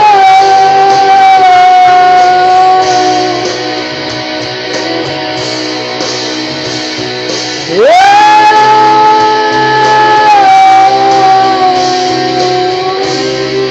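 A singer holds two long, high wordless notes over a guitar band backing. About eight seconds in, the voice slides steeply up from low into the second held note.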